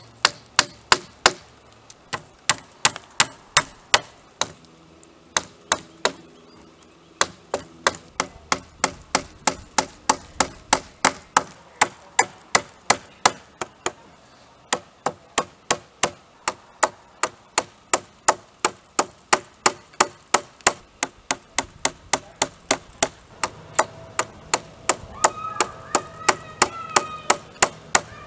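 Steady hammering on a log-pole gate frame: sharp blows at about two to three a second, in runs broken by a few short pauses, as chicken wire is fastened to the poles. Near the end a fainter pitched sound with a few steady tones comes in under the blows.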